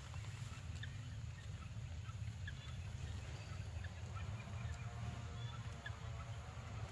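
Forest ambience: scattered short bird chirps over a steady low rumble. A longer, drawn-out pitched call comes in about halfway through and runs on to the end.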